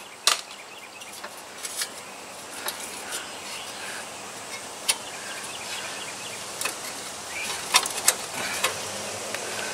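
Scattered sharp clicks and light metal knocks as a loose, rusty lawn-tractor muffler is gripped and worked by hand after its bolts are removed, over a steady outdoor background hiss.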